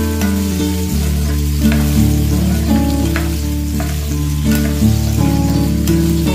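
Peanuts and chopped pieces sizzling as they fry in hot oil in a pan, stirred with a spoon that scrapes against the pan. Background instrumental music plays under the frying.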